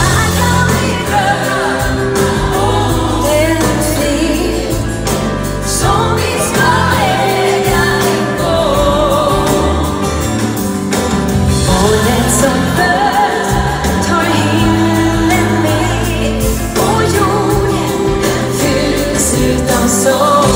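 Live music: a woman singing lead with a group of singers joining in, over a band, in a gospel-style Christmas song.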